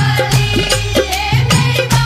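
Haryanvi folk song music: a fast, steady drum beat of about four strokes a second over a held bass, with a wavering melody line above it.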